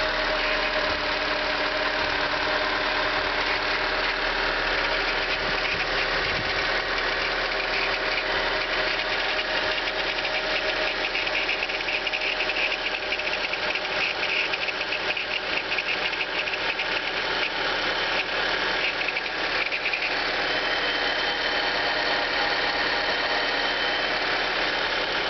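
1999 Honda Civic 1.6 engine running with a fast metallic rattle on top of the engine note, a noise the owner says is not the valves or hydraulic tappets and believes to be a bearing, such as the belt tensioner, oil pump or alternator. The rattle grows louder and higher-pitched from about ten seconds in, then eases back near the end.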